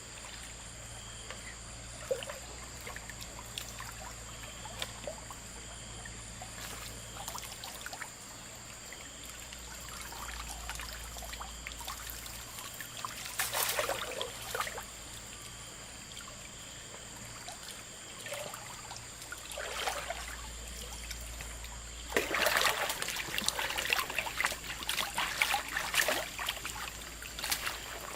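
River water trickling and flowing over stones, with brief splashes about halfway through and a louder stretch of splashing near the end.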